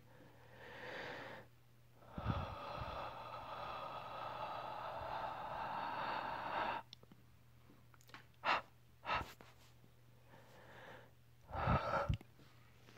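Close breathing and blowing onto a phone's camera lens to clean it: a long airy exhale lasting several seconds, then two short puffs and a louder burst near the end.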